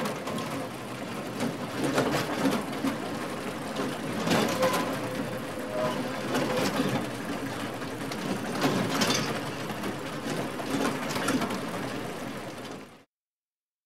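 Elevator car moving: a steady mechanical rattle and hum with scattered clicks and knocks, cut off abruptly about 13 seconds in.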